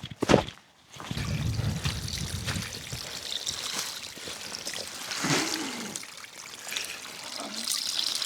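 A couple of footsteps at the start, then water trickling and running steadily, as of a small stream.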